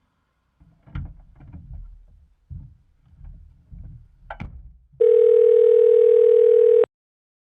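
Telephone ringback tone heard through a phone speaker while a call rings out unanswered: one ring lasting about two seconds, starting about five seconds in. Before it come low muffled handling sounds with two sharp clicks.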